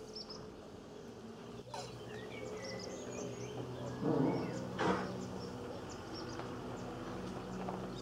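Short high bird chirps and twitters come and go over a steady low humming buzz. About four seconds in there is a loud dull thud, followed by a sharp knock just under a second later.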